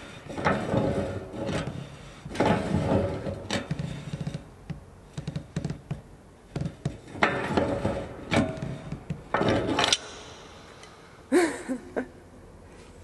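A large wrench turning the threaded screw post of a steel boat jack stand: irregular metal clanks and scrapes in several bursts, with a short laugh near the end.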